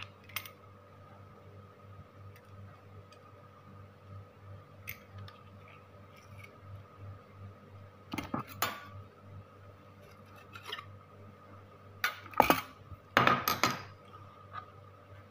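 Metal garlic press squeezing ginger, then clinking against a spoon and a ceramic bowl as the pressed ginger is knocked out. A couple of sharp clicks come about eight seconds in, and a louder clatter of metal knocks follows a little before the end.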